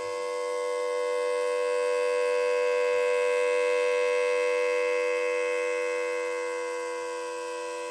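Homemade Federal Signal Thunderbolt 1003 siren sounding the full alert: one steady, unwavering tone that swells in loudness to about halfway through and then slowly fades back.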